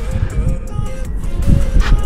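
Background music with a steady low rumble underneath.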